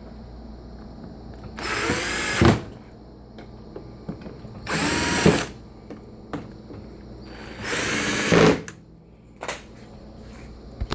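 Power drill driving screws back into a dishwasher door panel: three short whirring runs of about a second each, about three seconds apart, with a few small clicks between them.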